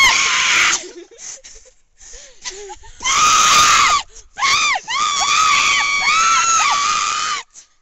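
High-pitched screaming voices: a short shriek at the start, then long, wavering shrieks from about three seconds in until just before the end.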